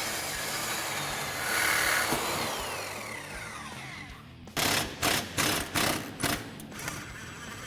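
Power tool cutting through the stock steel exhaust downpipe near its weld: a continuous cutting noise whose pitch falls away about halfway through, then a run of about seven short, sharp bursts.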